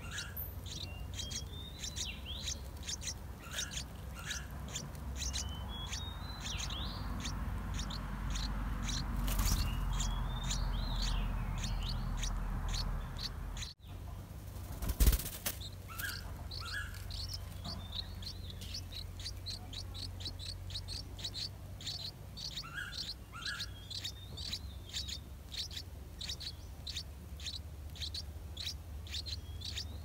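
Rapid, high-pitched cheeping of yellow-vented bulbul nestlings begging at the nest, the short chirps running on without a break. A rustle builds in the first half, and there is a single sharp knock about halfway through.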